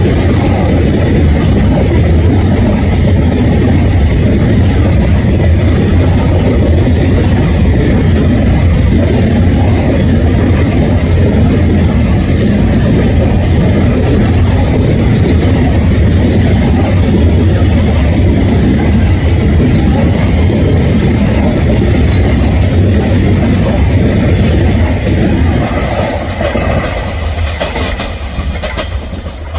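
A freight train of empty flat wagons rolling past close by, its wheels rumbling and clattering over the rails. The noise eases near the end as the last wagons go by.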